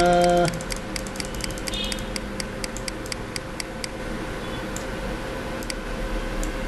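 Computer mouse clicking rapidly on a scroll arrow, about five clicks a second for about four seconds, then a few single clicks. A short hummed voice sound comes right at the start.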